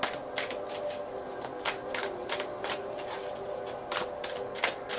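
Tarot cards being shuffled and handled, giving a run of sharp, irregular snaps and clicks.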